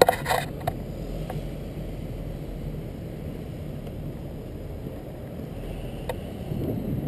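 Inline skate wheels rolling over asphalt: a steady low rumble, with a few sharp clicks in the first second.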